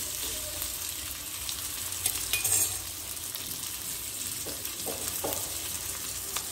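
Sliced onions sizzling in hot oil in a small steel pot on high flame, stirred with a spoon at first, with a short clatter about two seconds in.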